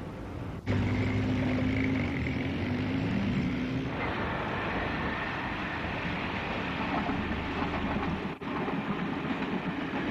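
A first-generation British Rail diesel multiple unit passing, its underfloor diesel engines running with a steady low drone and a higher whine over the rumble of the train. The sound cuts in abruptly under a second in and drops out for a moment near the end.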